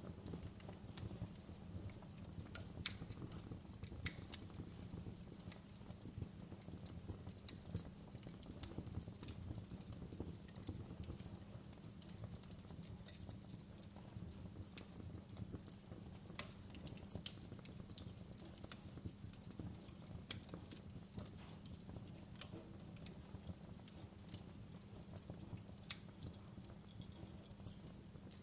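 Fireplace fire crackling: irregular sharp pops and snaps, one louder pop about three seconds in, over a steady low rumble.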